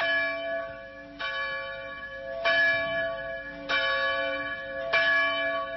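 A single church bell tolling slowly, struck five times about a second and a quarter apart, each stroke ringing on into the next.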